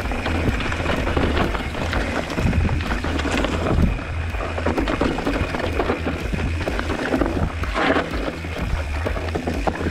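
Background music over the noise of a mountain bike descending a stony dirt singletrack: tyres crunching over loose stones and the bike rattling and knocking over the bumps.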